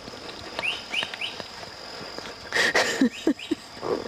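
Birds chirping in short runs of quick falling notes over a steady high insect drone. About halfway through, a woman laughs in a few short bursts.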